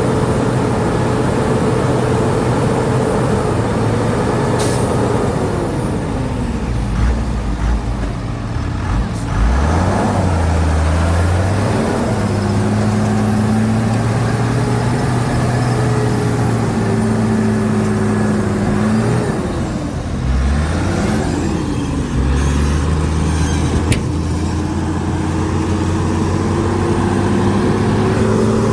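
Bulldozer diesel engine working under changing load: its pitch holds steady, then sags and recovers several times, with a few short sharp hisses or clanks.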